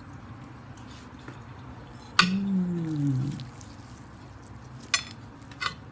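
A metal spoon clicks sharply against a serving plate about two seconds in, followed by a person's low, drawn-out hum that falls in pitch for about a second. Two lighter spoon clicks come near the end.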